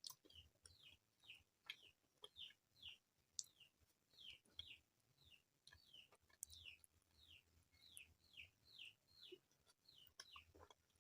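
Close-miked wet chewing and mouth sounds: soft, squelchy, chirp-like smacks repeating about two to three times a second, with a few sharper clicks.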